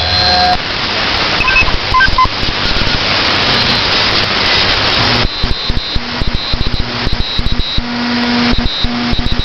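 Radio signal heard through a KiwiSDR web receiver: a hiss of static with a few short beeps, then, about five seconds in, a rapid, even pulsing mixed with steady tones, an unidentified strange signal on the band.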